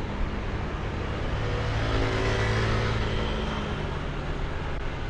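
Motor traffic heard from a moving motorbike: a steady engine hum over road and wind noise, with an engine sound that swells and fades about midway through.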